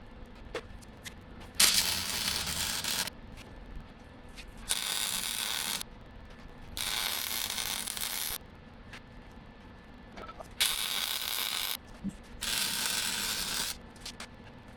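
Wire-feed welder laying short weld beads on a cracked excavator bucket: five separate crackling, hissing runs of about a second each, with short pauses between them.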